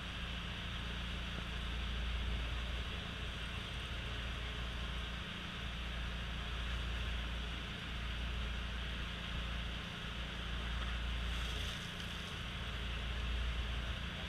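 A fishing boat's engine runs steadily, with a low rumble and a hiss of wind and water over it.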